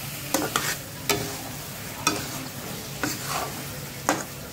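A metal spatula scraping and knocking against the pan, in irregular strokes about once a second, as thick bottle gourd halwa is stirred and turned over a faint sizzle. The halwa has begun to release its ghee in its last stage of roasting.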